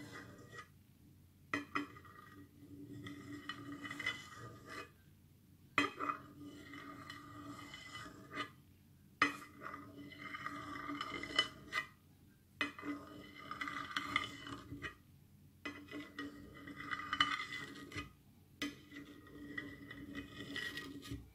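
Knife scraping and tapping on the bottom of a dish as it cuts set gelatin into strips, in short strokes with a sharp click every few seconds where the blade strikes the dish.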